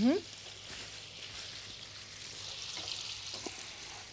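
Steady sizzling of small potatoes frying in butter and sugar in a pan, cooking until they caramelize and brown, with a few faint clicks.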